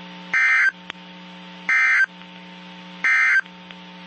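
Emergency Alert System end-of-message code: three short bursts of SAME digital data, the shrill warbling two-tone squawk, about a second and a half apart, closing a National Weather Service warning. A steady low hum runs underneath.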